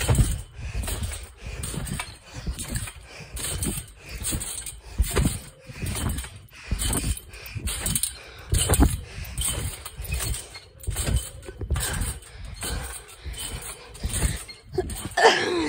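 Someone bouncing on a trampoline, about one landing a second: the mat thumps and the springs creak with each bounce. A brief voice sound near the end.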